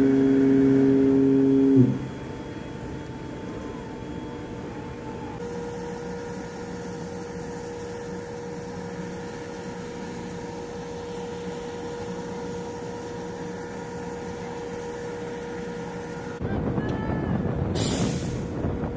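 A ship's horn sounds one long, steady blast that stops abruptly about two seconds in. A steady low hum with a faint thin whine follows. Near the end, wind buffets the microphone in gusts.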